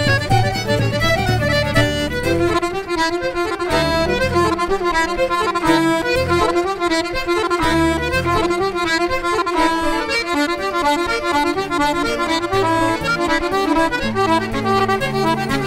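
Irish traditional tune played live by a band: accordion carrying a quick melody with fiddle, over a moving bass line.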